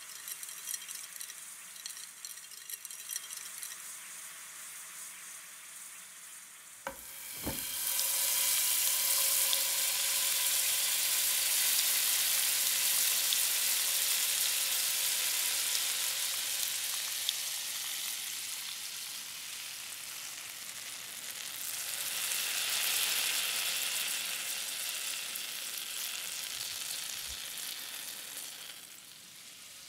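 Liquid poured into a hot frying pan holding a whole rockfish with radish and potato, sizzling loudly. The sizzle starts suddenly after a knock about a quarter of the way in, eases off, swells again, and fades near the end.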